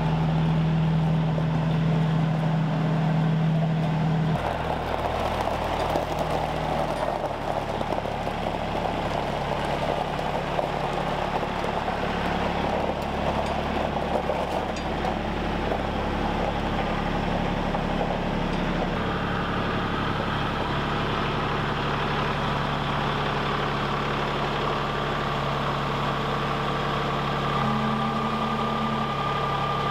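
Kubota L3901 compact tractor's three-cylinder diesel engine running steadily while it carries a log on its front loader. Its note changes about four seconds in and again past the middle.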